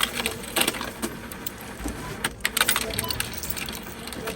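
Irregular clicks and clatters of small hard objects being handled, in quick clusters, loudest about half a second in, between two and three seconds in, and again just after the end.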